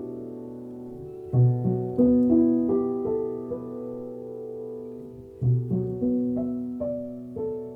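Piano music: slow notes and chords struck one after another, each left to ring and fade, with low bass notes about a second and a half in and again near the middle.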